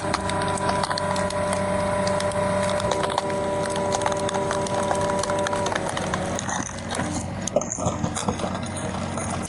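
Cone-screw splitter bit (TA20 drill bit with splitter) driven into a log: a steady machine whine with wood cracking and splintering as the log splits. The whine stops about six seconds in, and irregular cracks of splitting wood go on.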